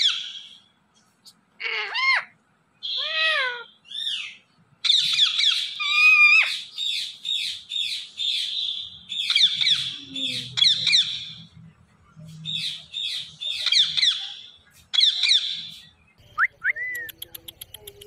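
Indian ringneck parakeet calling in high-pitched runs of quick, sharply falling and arcing notes, several runs with short gaps between them, and a couple of short rising chirps near the end.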